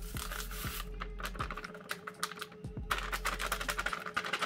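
Dry cookie-crumb crust mix being poured from its packet into a bowl: a crackly patter of crumbs and packaging.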